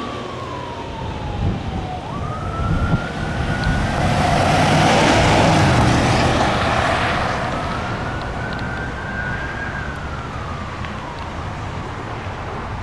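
Fire apparatus siren in a slow wail, its pitch sliding down, then up, and falling again twice, over a rush of road and engine noise that swells around the middle.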